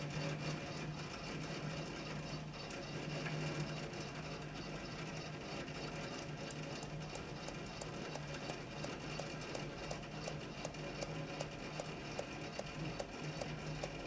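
RION SG-07 sound spectrograph running, its drum motor and stylus carriage giving a steady low mechanical hum. From about five seconds in, sharp regular ticks join it at roughly three a second while the spectrogram is marked onto the drum's paper.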